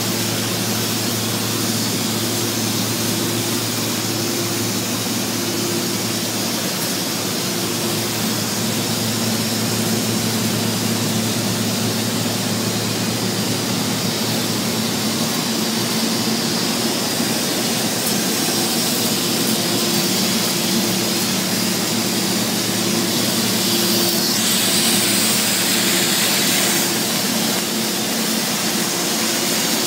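Steady, loud industrial noise of an automatic overlay (hardfacing) welding rig running on a mill grinding table, with a steady low electrical hum underneath.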